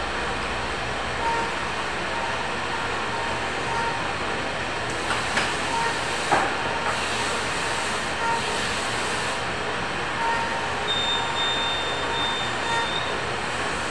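Machine-shop noise: a steady drone of running machinery, with short beeps that recur irregularly and a few sharp metallic clicks and knocks about five to six and a half seconds in. A thin high tone sounds for about two seconds near the end.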